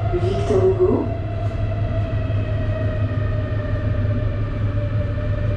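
Paris Métro Line 2 train running through the tunnel, heard from inside the carriage: a steady low rumble with a traction-motor whine whose pitch sinks slightly as the train slows for the next station. A brief squeak sounds about half a second in.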